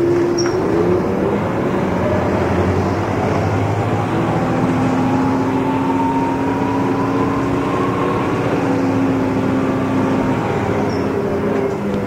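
1994 TMC RTS transit bus running under way: the Detroit Diesel Series 50 inline-four diesel and Allison V-731 automatic transmission drone steadily, with a whine that climbs slowly in pitch over several seconds and a lower steady tone joining in the middle.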